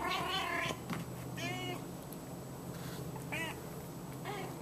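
F1 Savannah kittens mewing: a longer call at the start, then three short high mews a second or two apart.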